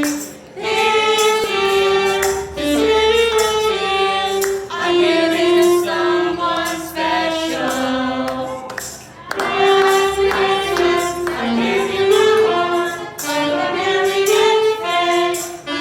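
Song with a sung vocal line, held and gliding notes in short phrases, over musical accompaniment.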